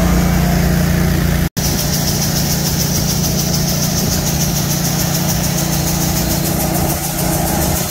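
A small engine on a grain auger runs steadily, with a hiss from treated seed pouring into a truck's hopper. The sound cuts out for an instant about one and a half seconds in.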